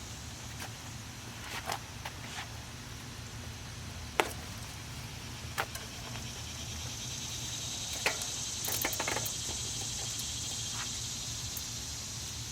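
Insects chirring steadily at a high pitch over a low hum, growing louder about two-thirds of the way in, with scattered light clicks and taps from a bicycle wheel being handled.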